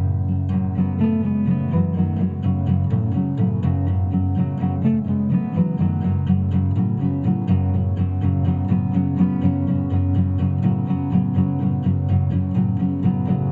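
Acoustic guitar playing a flowing instrumental piece, many notes picked in quick succession over ringing low notes.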